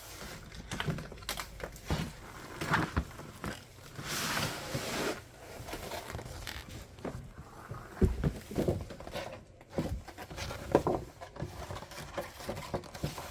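Cardboard packaging being handled and its cover slid off: irregular rustling, scraping and light knocks, with a longer scraping slide about four seconds in.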